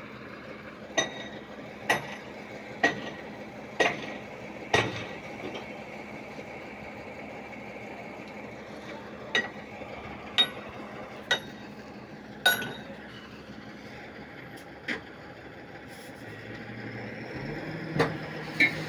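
Sharp metal strikes on a sand tipper truck's steel tailgate, about one a second in a run of five, then a second run of four and a few single blows, over the truck's steady diesel idle. Near the end the engine note rises as the hydraulic hoist starts to tip the body.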